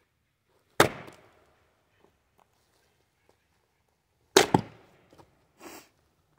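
A Fiskars X27 splitting axe striking the end of a log round twice, about three and a half seconds apart; the second blow lands as a quick double knock. A short, softer scuffing sound follows near the end.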